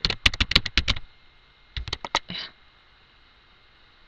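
Typing on a computer keyboard: a fast run of key clicks for about a second, then a few more keystrokes about two seconds in.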